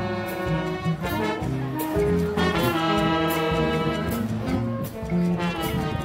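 Student jazz band playing live, saxophones and trombones holding chords over a steady beat.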